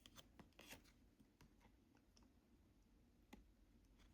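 Near silence broken by faint, irregular clicks and light scrapes of cardboard trading cards being flipped through by hand.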